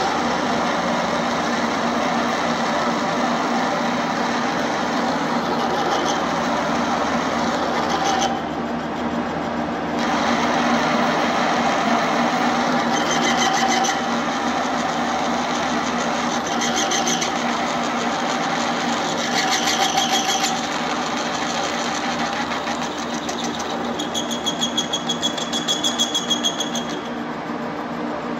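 Metal-turning lathe running with a steady machine hum. Several times a higher, rapidly fluttering whine comes in over it for a second or a few seconds, the longest near the end.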